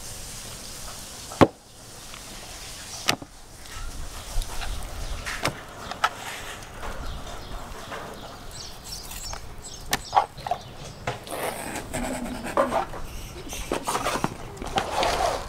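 Kitchen knife cutting and sawing through a large piece of raw beef on a plastic tray on a wooden table, with a few sharp knocks, two of them close together about ten seconds in.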